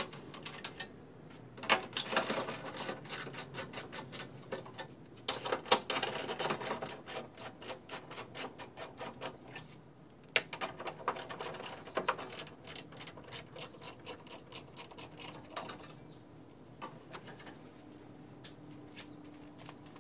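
Ratchet tool clicking in quick runs as screws are backed out, with short pauses between runs and only scattered clicks in the last few seconds.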